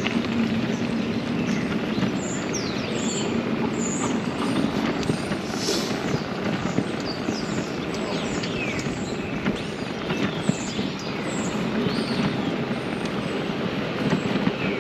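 Wind rushing over the microphone and road noise while riding an electric bike, a steady rumble with a few short high chirps scattered through it.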